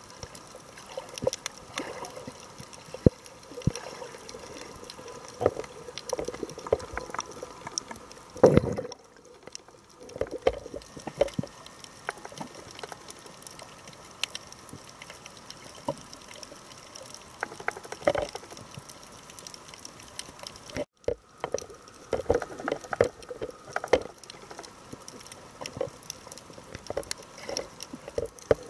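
Underwater sound heard through a camera's waterproof housing: a steady hiss with frequent irregular clicks and knocks and a few louder watery gurgles, the strongest about eight and a half seconds in. The sound cuts out briefly just after twenty seconds.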